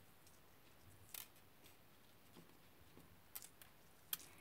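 Near silence with a few faint, sharp clicks from beads, a beading needle and fishing line being handled in the fingers. One click comes about a second in, and a small cluster comes near the end.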